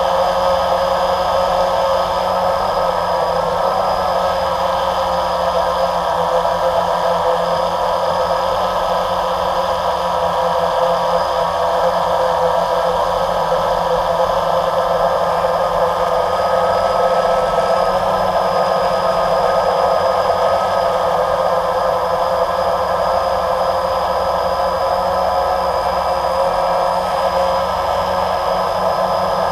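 Multirotor camera drone's electric motors and propellers running steadily while hovering, heard from the camera on board: a constant whir with several held tones that waver slightly.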